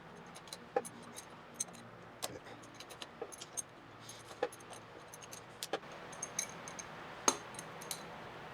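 Irregular small metallic clicks and clinks of hand tools on metal as the fork top cap of a Kawasaki KLR650's front fork is worked loose, with about fifteen sharp ticks spread unevenly.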